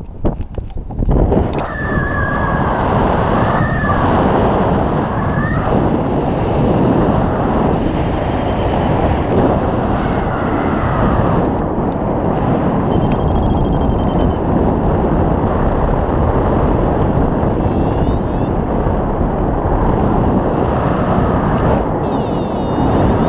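Loud steady rush of air over the microphone of a camera on a paraglider in flight. Several short runs of rapid high beeps, some rising in pitch, come through it a few seconds apart: a variometer's climb tone, the sign of the glider rising in lift.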